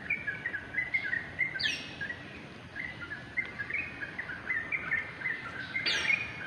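Birds chirping: a busy run of short chirps, with a louder, high call that sweeps sharply down in pitch, heard about a second and a half in and again near the end.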